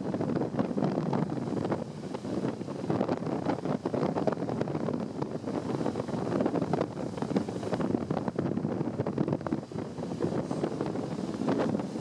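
Strong storm wind buffeting the microphone in uneven gusts, with heavy surf from big storm waves mixed underneath.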